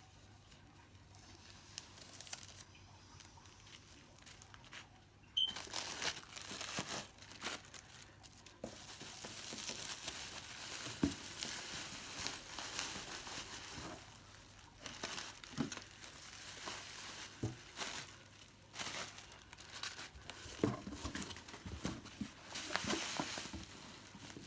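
Plastic bubble wrap crinkling and rustling in irregular stretches as a wrapped bundle is handled and pulled out of a cardboard box. It starts about five seconds in, after a few soft clicks of handling.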